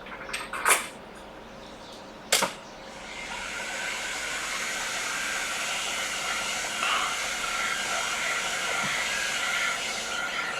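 Two sharp clicks, then a hot air rework station starts blowing a steady hiss about three seconds in, heating a small diode on the iPad Pro logic board to solder it in place.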